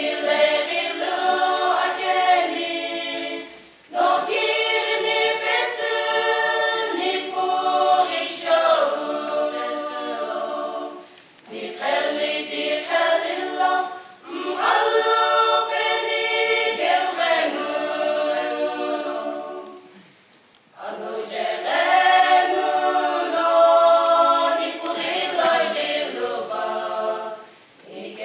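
Women's choir singing unaccompanied, in long phrases broken by short pauses for breath, the longest about two-thirds of the way through.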